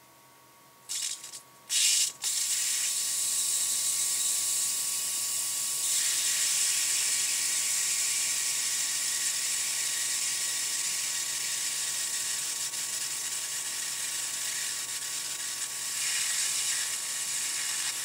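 Fermentation airlock on a carboy of imperial stout, clogged with krausen foam, fizzing and crackling as CO2 forces through the foam: fermentation so vigorous that foam has filled the airlock and threatens to blow it off. Two short bursts come about a second and two seconds in, then a steady fizzing crackle.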